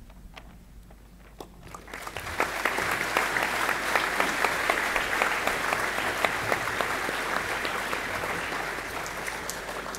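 An audience clapping. It begins about two seconds in after a short quiet, holds steady, and eases off slightly near the end.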